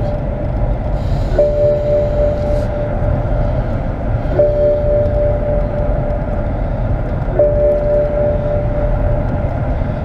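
BMW 645ci driving, heard from inside the cabin as a steady rumble of engine and road. Over it a dashboard warning chime sounds three times, about every three seconds, each tone held for over a second; the driver takes it for the low-fuel warning.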